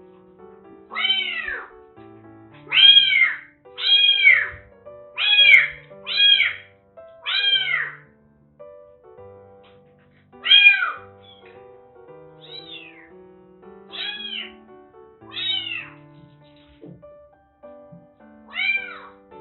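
Kittens meowing over and over, about eleven short cries that each rise and fall in pitch, with a gap of a couple of seconds around the middle. Soft background music plays underneath.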